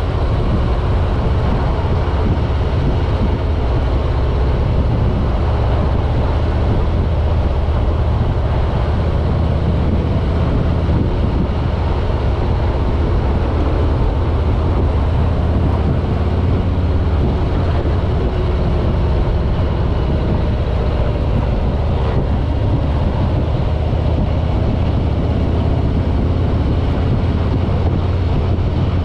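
Harley-Davidson Road King's Milwaukee-Eight 107 V-twin engine running steadily while the motorcycle is ridden at road speed: an even, low rumble with road noise over it.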